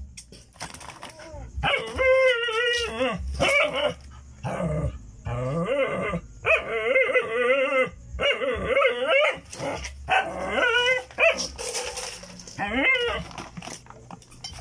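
A dog whining and yelping in a string of long, wavering cries, starting about two seconds in.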